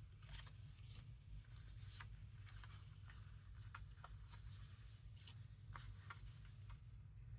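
Printed paper journal cards and tags being handled and laid down: faint, irregular rustles and light taps over a steady low hum.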